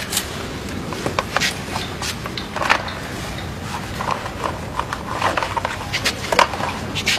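Irregular clicks and rustles of hands handling clear silicone tubing at a small submersible water pump in a plastic bucket, over a steady background hiss.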